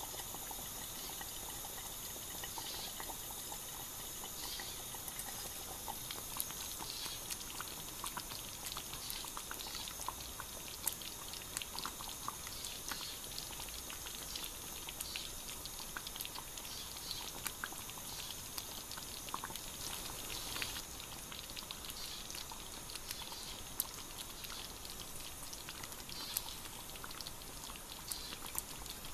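Beef stew simmering in a Captain Stag 14 cm cast-iron cocotte, with small, soft bubbling pops scattered over a steady faint hiss.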